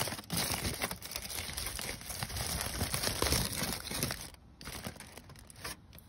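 Aluminium foil crinkling as hands unwrap it. The crackling is dense for the first four seconds or so, then quieter.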